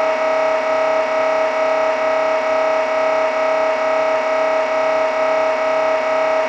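MRI scanner's gradient coils running a scan sequence: a loud, steady buzzing drone with a faint regular pulse about twice a second.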